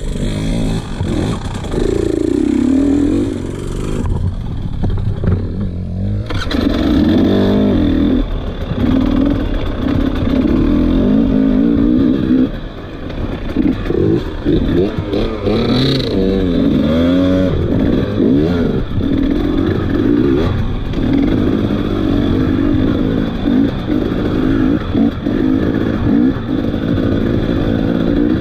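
Dirt bike engine, heard from on the bike, revving up and dropping back over and over as it is ridden along a rocky woods singletrack.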